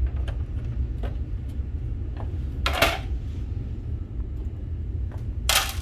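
The plastic housing of a water ionizer being handled and opened up: a few light clicks and two short scraping rattles, one about halfway through and one near the end, over a steady low rumble.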